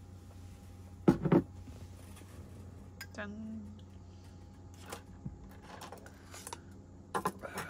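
Dishes and cutlery being handled: a few sharp clinks and knocks, loudest about a second in and again near the end, over a steady low hum.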